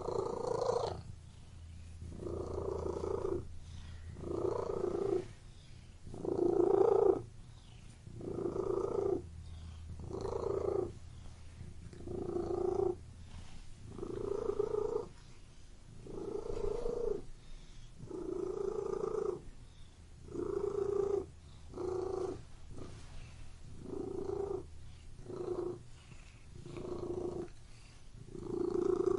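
Domestic cat purring continuously, the purr swelling and easing about every two seconds with each breath in and out.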